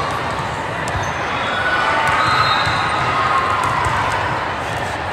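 Echoing hall full of crowd chatter, with scattered bounces and hits of volleyballs from play on the courts around.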